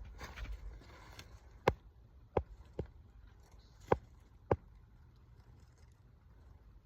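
Five sharp knocks or snaps of wood, spaced unevenly over a few seconds, as sticks are handled and set in place for a stick shelter.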